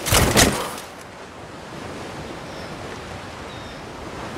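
A couple of heavy thuds in the first second, then steady surf washing on the shore, with some wind.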